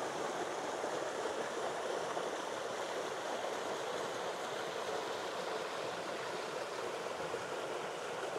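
Small stream flowing: a steady, even rush of water.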